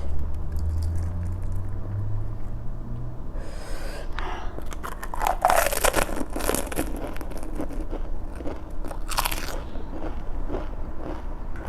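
Close-miked crunching and chewing of crisp panipuri shells, a dense run of crunches starting about four seconds in.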